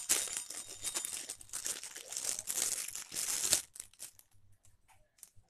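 Clear plastic wrapping crinkling as a hair trimmer is pulled out of it, for about three and a half seconds, then a few light handling clicks.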